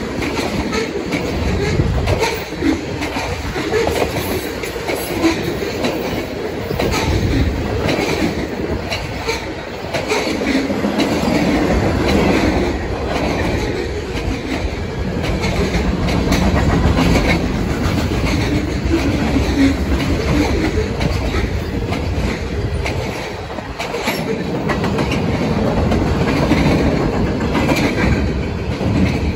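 Freight train cars (gondolas, tank cars, flatcars) rolling past close by. Steel wheels rumble steadily on the rail, with a continuing clatter of knocks as the wheels cross the rail joints.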